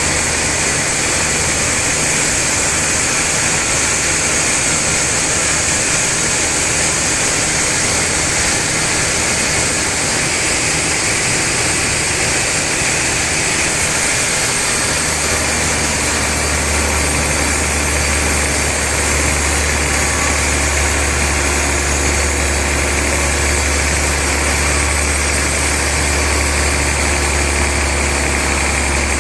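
Sawmill saw machinery running steadily with a continuous mechanical drone and hiss; a deeper hum grows stronger about halfway through.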